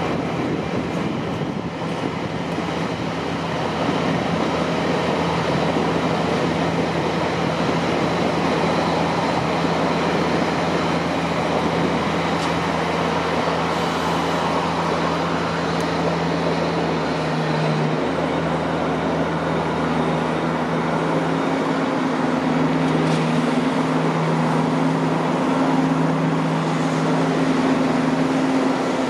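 Elizabeth line Class 345 electric trains running slowly past: steady rail rumble with an electrical hum, and a second, higher hum joins about twenty seconds in.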